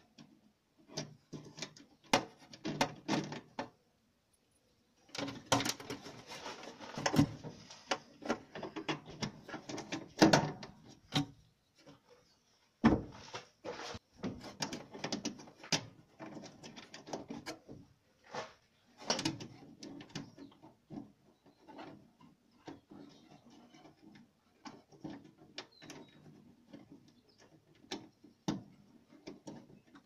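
Irregular small clicks, taps and scrapes of hands fitting the starter cable's terminal and threading a nut onto a terminal stud of a riding mower's starter solenoid.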